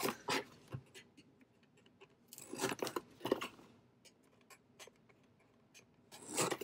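Cardboard product box being handled and pried open: scattered scrapes, rustles and small taps, in a cluster at the start and another a couple of seconds in, with sparse faint ticks between.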